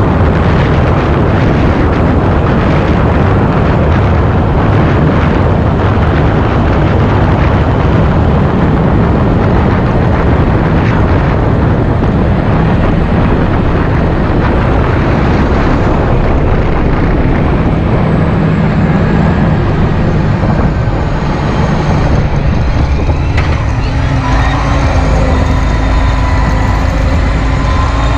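John Deere 8430 tractor's six-cylinder diesel engine running as the tractor travels on the road, with heavy wind noise on the microphone. In the last few seconds the rushing wind thins and the engine's low, steady hum comes through more plainly.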